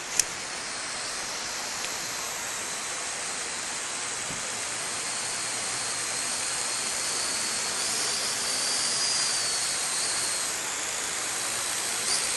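Small quadcopter drone flying overhead: a steady high whine and hiss from its propellers that wavers in pitch midway and grows slightly louder. A single sharp click sounds just after the start.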